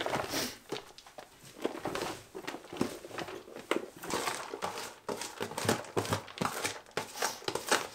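Hands mixing and scooping salted shredded white cabbage in plastic tubs: an irregular run of crisp rustling and crunching as the shreds are tossed and tipped from one tub into another.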